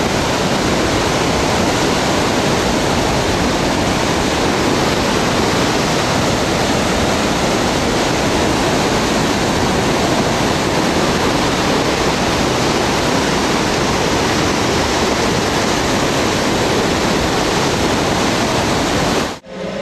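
Loud, steady rush of water pouring out of the Monroe Reservoir drain into the tailwaters, an even wall of whitewater noise that cuts off abruptly at the very end.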